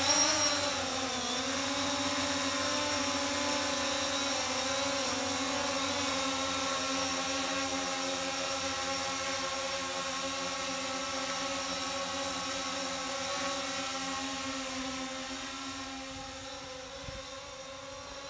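DJI Phantom 4 quadcopter's motors and aftermarket three-bladed propellers humming in hover, a steady multi-tone buzz that dips in pitch about a second in and fades over the last few seconds as the drone moves away. The drone is flying unsteadily on these props, really jumpy.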